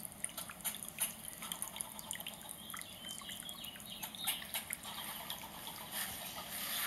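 Small backyard birds chirping, a quick scatter of short calls, over a steady high hiss.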